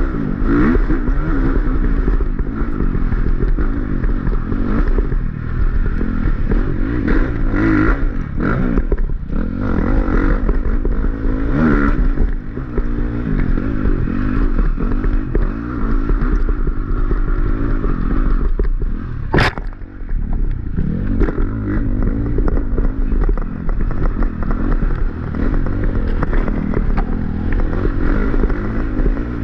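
Dirt bike engine being ridden hard on a woods trail, its revs rising and falling over and over as the rider works the throttle, with one sharp knock about two-thirds of the way through.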